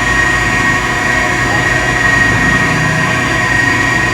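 Heavy machinery engine running steadily under load, with a steady high whine over the engine noise.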